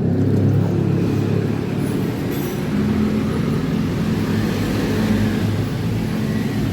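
A motor vehicle engine running steadily with a low hum, its pitch shifting slightly about three seconds in.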